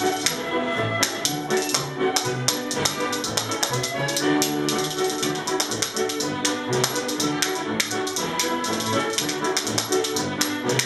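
Pair of spoons clacked rapidly against the knee and palm in quick, rhythmic runs of clicks, played along to Scottish country dance band music.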